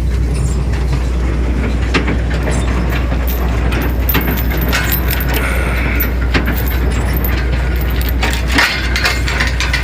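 Tractor engine running steadily while pulling a small square baler that is baling hay, with irregular knocks and clatter from the baler's working parts.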